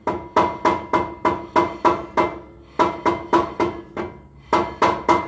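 Hammer blows on a 2010 Toyota 4Runner's rear brake rotor, about three a second in three runs with short pauses, each blow leaving a metallic ring. The rotor is being knocked to free it from the hub without first backing off the parking brake.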